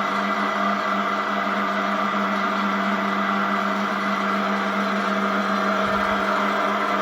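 Sydéric SF 62 milling machine running steadily, with a constant motor and gear whine.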